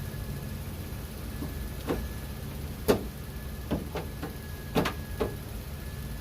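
Scattered sharp clicks and knocks of hand tools and car door handle parts being worked into place, about eight in all, the loudest about three seconds in. They sound over a steady low background hum.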